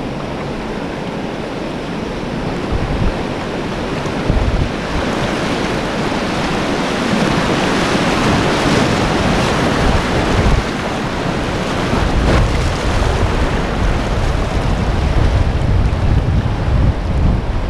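Rushing whitewater of a river rapid heard from a kayak, growing louder a few seconds in as the boat runs through the waves, with low buffeting of water and wind on the microphone later on.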